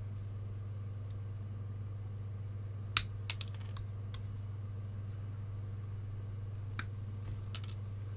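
Sharp clicks of wire snips cutting the excess legs off newly soldered capacitors on a VCR power-supply board. One loud snip comes about three seconds in, a few lighter clicks follow just after, and two more come near the end, all over a steady low hum.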